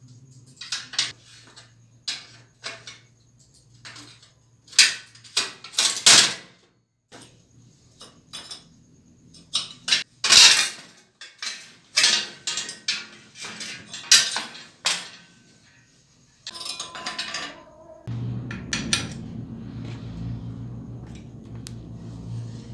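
Metal clinks and knocks of tools and loose parts on a rusty old bicycle being taken apart, sharp and irregular. About three-quarters of the way through, a steadier low hum with a rattle takes over.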